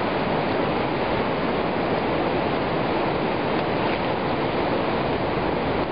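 Steady rushing noise, even and unbroken throughout.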